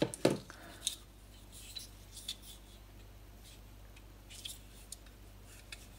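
The plastic housing and metal screw base of a dismantled LED bulb being handled and set down on a table: a few scattered small clicks and taps, the sharpest right at the start.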